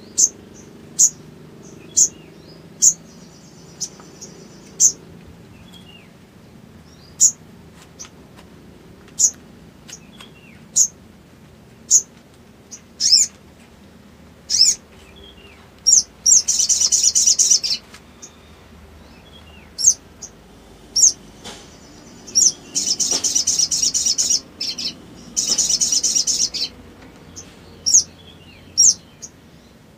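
Male olive-backed sunbird calling: sharp, high single chirps about once a second, broken by three longer rapid chattering trills in the middle of the stretch.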